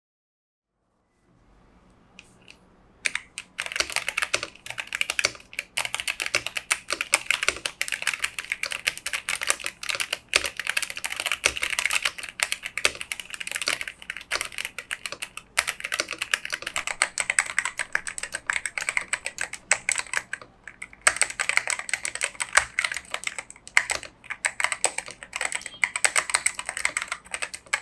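Typing on a mechanical keyboard fitted with Cherry-profile double-shot ABS keycaps: a fast, continuous clatter of keystrokes. It starts about three seconds in, after a faint hum, with brief pauses now and then.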